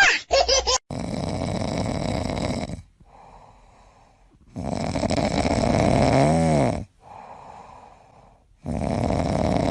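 Loud snoring: three long snores about four seconds apart, with quieter in-breaths between them. A short pitched tone dips and rises in the middle of the second snore.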